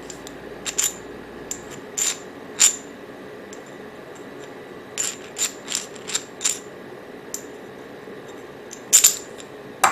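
Sharp metal clicks and clinks from handling the metal flask clips and flask parts. They come irregularly: a few early on, a quick run of about five in the middle, and the loudest near the end.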